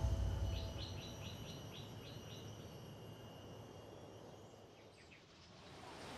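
Quiet background ambience with a small bird chirping a quick run of about eight short high notes, some four a second, then two more chirps near the end. The tail of background music fades out at the start.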